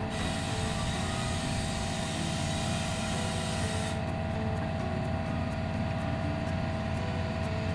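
A steady machine drone with a constant hum running at an even level.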